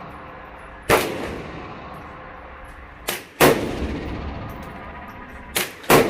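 Semi-automatic rifle fired shot by shot, each a sharp report with a trailing echo. A shot comes about a second in, another about three seconds in, and a pair close together near the end, with a fainter shot just before the loud ones.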